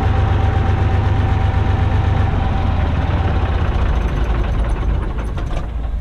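Farm tractor engine running steadily at idle while the tipper trailer's raised body lowers after unloading, with a thin steady whine over it for about the first half.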